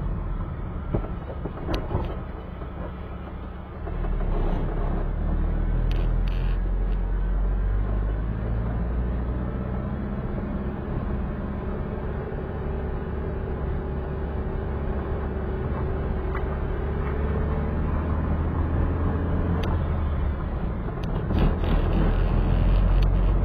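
Car engine running and road rumble while driving. The engine gets louder about four seconds in, then holds a fairly steady note.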